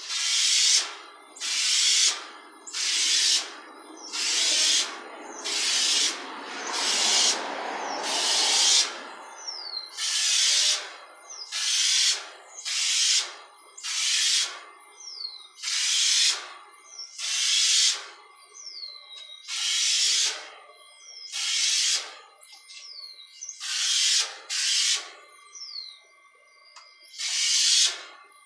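Homemade compressor-fed spray gun, built from an insecticide pump sprayer, hissing in short bursts about once a second as a coat of varnish is sprayed onto wooden pieces, each burst started and stopped by a finger over a hole in the gun. Short falling bird calls come between the bursts.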